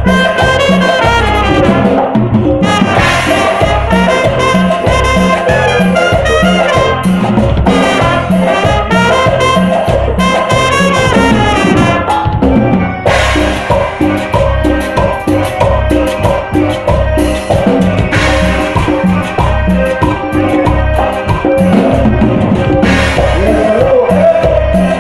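Live cumbia band playing: accordion, trumpets, metal güiro and drum kit over a steady bass beat.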